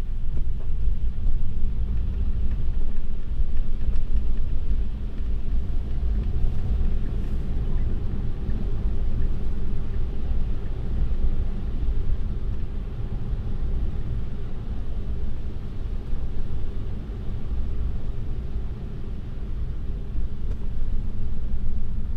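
Steady low rumble of road and tyre noise heard inside a Tesla's cabin while driving.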